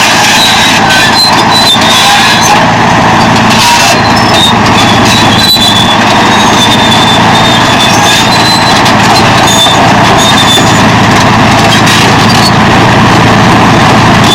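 Caterpillar D9 bulldozer's diesel engine running steadily under heavy load while it rips hard ground with its rear shank, with short high-pitched squeals coming and going over it.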